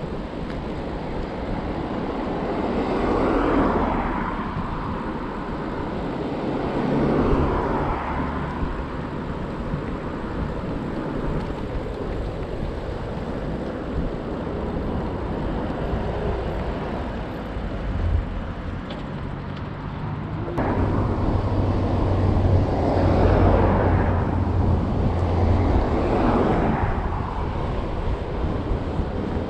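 Wind and tyre noise from an electric bike ridden along a roadside path, with several swells and fades as traffic passes on the road alongside. The sound changes abruptly about two-thirds of the way through.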